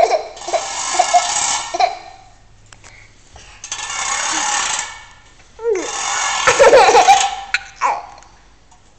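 Baby laughing and giggling in short, high bursts, mostly at the start and again about six to eight seconds in, together with three loud stretches of hissing noise about a second or more long.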